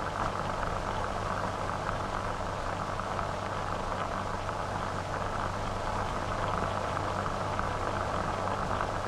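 Steady hiss and low hum of an old 1940 optical film soundtrack, with no narration and no distinct event.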